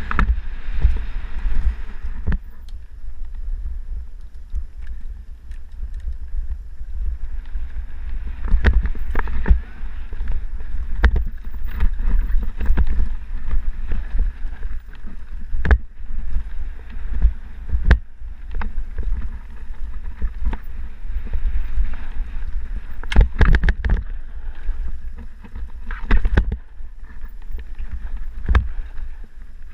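Mountain bike descending a dirt singletrack: a steady low wind rumble on the bike-mounted camera's microphone, with tyre noise and frequent sharp knocks and rattles as the bike goes over roots and rocks. A dense clatter of knocks comes about two-thirds of the way through.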